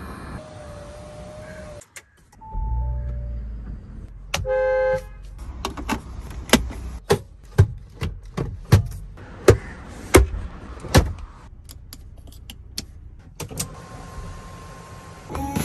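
An SUV's own sounds: short steady chime tones, a brief horn toot about four and a half seconds in, then a run of about a dozen sharp clicks, and another steady chime tone near the end.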